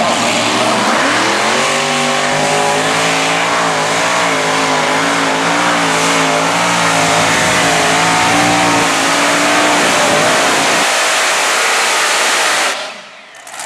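Multi-engine modified pulling tractor's supercharged engines running at full throttle as it pulls the weight-transfer sled. The pitch climbs about a second in and wavers as the tractor goes down the track. The low engine note cuts off about eleven seconds in.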